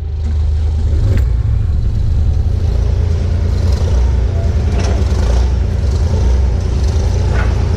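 Kubota 040 compact excavator's diesel engine running steadily, with a few brief knocks, about a second in, midway and near the end.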